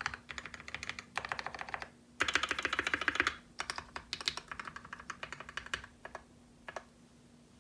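Typing on a custom mechanical keyboard with PBT keycaps, its case lined with DIY sound-dampening foam: quick runs of key clicks, fastest and loudest about two to three seconds in, then thinning to a few last keystrokes near the end.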